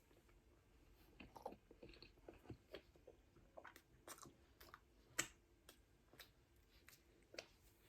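Faint chewing: soft, wet mouth clicks and smacks at an uneven pace, the loudest about five seconds in.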